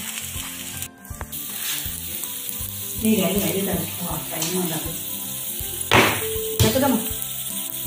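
Stuffed paratha sizzling in ghee on a hot tawa over a low flame, with a sharp click about six seconds in.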